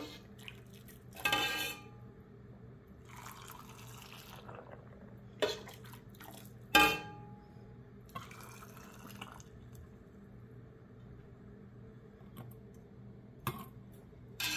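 Hot pickling brine ladled through a stainless steel canning funnel into a glass jar of peeled garlic cloves: two short spells of pouring liquid, and several sharp metal clinks of the ladle against the funnel.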